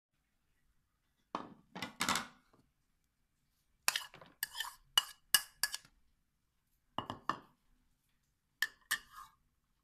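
A white ceramic plate clinking and knocking against a plastic food container as carrot strips are tipped off it, in four short runs of taps, some ringing briefly.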